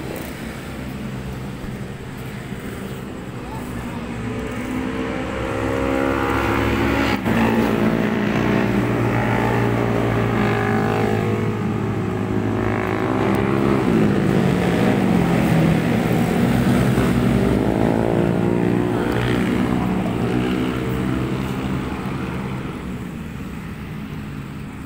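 Motor vehicle engines passing on the street, their hum swelling about four seconds in, sliding up and down in pitch, and fading near the end. A single sharp click about seven seconds in.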